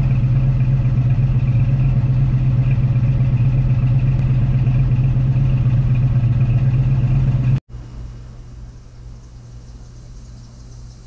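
1989 Ford Mustang's 5.0 L small-block V8 idling steadily through long-tube headers and a true dual exhaust with Flowmaster mufflers, heard loud at the tailpipes. The sound breaks off about seven and a half seconds in and returns much fainter, from farther away.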